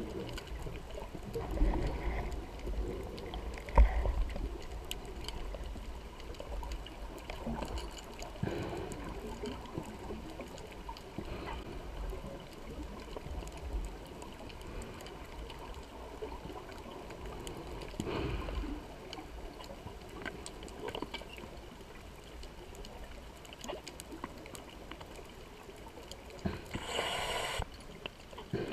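Scuba diver's exhaled bubbles from the regulator, heard underwater: bursts of bubbling every few seconds over a steady low water rumble, with the loudest burst near the end.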